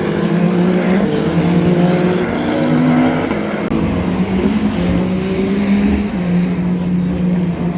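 Endurance race cars' engines at racing speed, revving up and stepping down in pitch with each gear change, while the note grows duller after about three and a half seconds.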